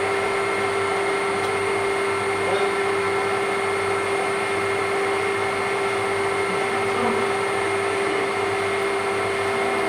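CNC milling machine running with its spindle turning an end mill: a steady machine hum with one clear held tone, as the tool is brought to the left edge of the workpiece to find its position.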